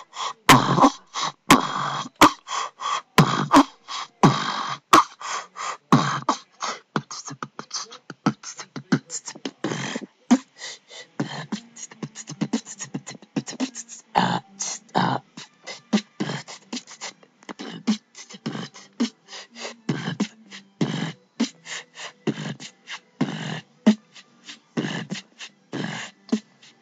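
A person beatboxing: a quick run of mouth-made drum sounds, low kick thumps mixed with sharp snare-like clicks and hissy strokes.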